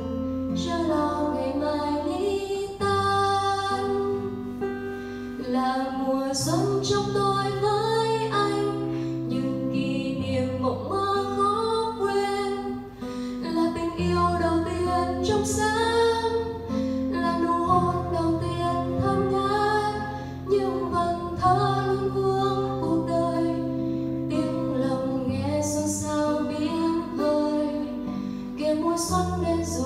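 A woman singing a song in Vietnamese, accompanying herself on acoustic guitar.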